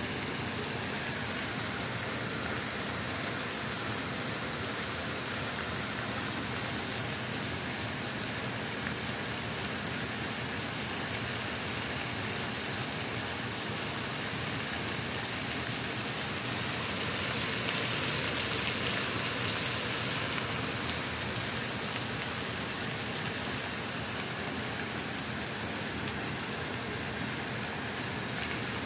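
Chicken breast, green bell pepper and onion sizzling in sesame oil in a pan: a steady frying hiss that swells a little past the middle.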